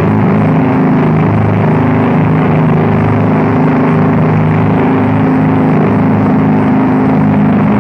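Loud, steady drone-noise music: several held low tones under a thick wash of noise, with no beat or breaks.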